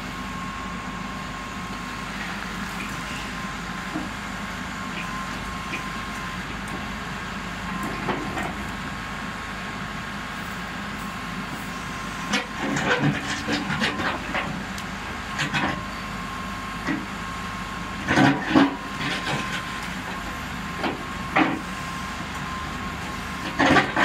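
Backhoe loader's diesel engine running steadily under a constant high whine while the backhoe arm digs. From about halfway through, irregular clanks and scraping knocks come in clusters as the bucket works into the soil, loudest near the end.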